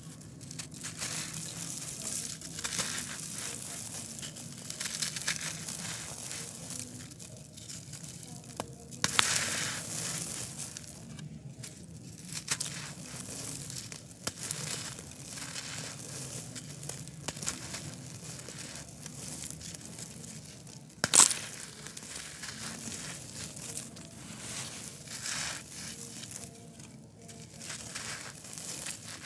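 Hands crushing and rubbing a dry, coarse-grained concrete disc: a steady gritty crunching and scraping of grains. There is a louder crunch about nine seconds in and a sharp crack about twenty-one seconds in.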